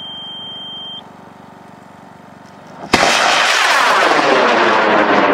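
A steady high electronic beep stops about a second in. About three seconds in, a high-power rocket motor ignites with a sudden loud rushing roar and keeps burning, its tone sweeping as the rocket climbs away.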